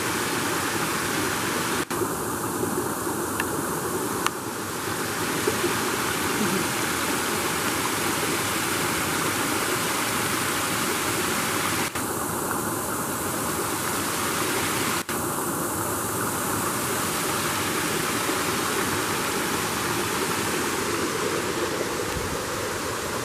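Spring water pouring over a small weir and splashing down a rocky stream bed: a steady rushing, with three momentary dropouts.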